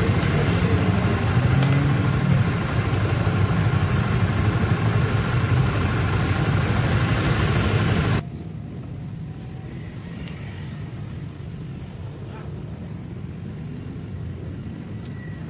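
Honda Supra GTR 150 single-cylinder engine idling steadily, then cutting off abruptly about eight seconds in, leaving a much quieter low background.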